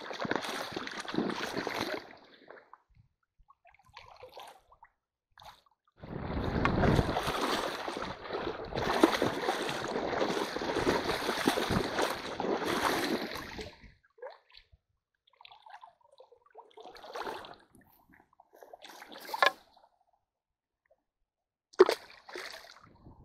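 Shallow stream water splashing and sloshing as a person in waders wades and works a hand net against the bank, the usual way of driving fish into a jokdae. There is a short spell at the start and a long, louder one from about six to fourteen seconds in, then a few small splashes and a sharp knock near the end.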